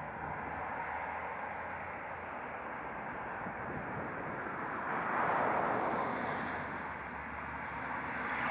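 Outdoor field-recording ambience: a steady rushing noise that swells for a couple of seconds about five seconds in, then settles again.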